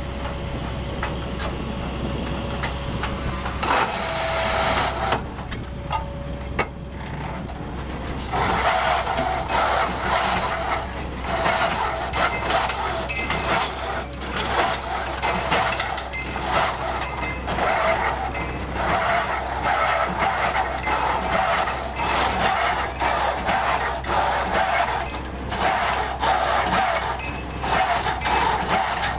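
Truck-mounted borewell drilling rig running, its engine a steady low hum. From about eight seconds in, a loud rushing hiss from the drilling takes over, breaking off briefly a few times.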